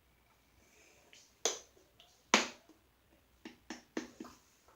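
A few sharp clicks or snaps: two loud ones about a second and a half and two and a half seconds in, then a quicker run of smaller clicks near the end.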